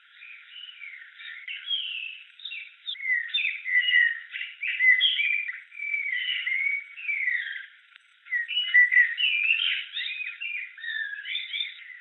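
A flock of small birds chirping and twittering in quick overlapping gliding calls, sounding thin as if filtered. The calls grow busier after a few seconds and briefly drop away about eight seconds in before resuming.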